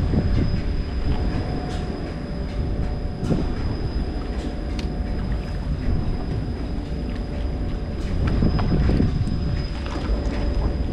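Steady low mechanical rumble with a faint constant whine over it, mixed with wind and water noise, and a few faint clicks.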